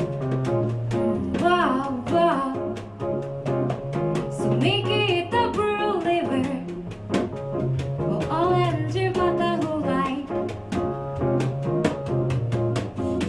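Live trio music: a woman singing melodic phrases over piano and a drum kit, the drums keeping time with steady light cymbal ticks under a repeating low piano line.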